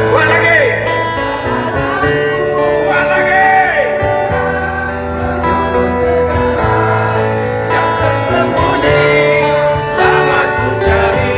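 Live street band playing a rock song through a small PA: a male singer belting long, bending notes over acoustic guitar strumming, electric bass and cajón.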